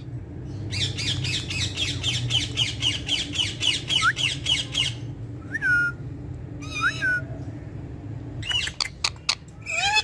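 Indian ringneck parakeet squawking: a fast run of harsh repeated calls, about six a second, for some four seconds, then a few single rising calls and short bursts of rapid chatter near the end.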